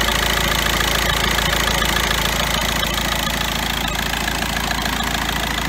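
Volkswagen Jetta TDI four-cylinder turbodiesel idling with a steady diesel clatter and a light tick, which the owner is surprised to still hear after replacing the camshaft; the engine runs somewhat shaky.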